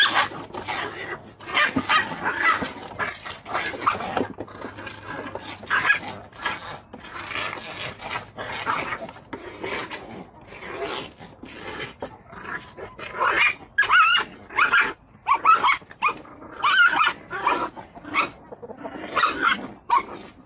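Puppies play-fighting, giving many short, high yips and whines in quick runs, busiest in the last third.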